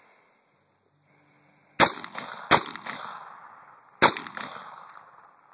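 Three shots from an AR-15 semi-automatic rifle, fired one at a time starting about two seconds in, the first two close together and the third after a longer pause, each trailing off in an echo.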